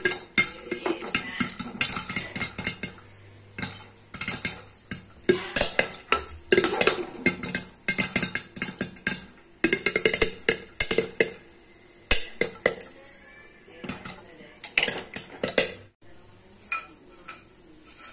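Popcorn kernels popping inside a closed metal pressure cooker: irregular sharp pops and ticks against the lid and sides, coming in quick clusters and thinning out near the end.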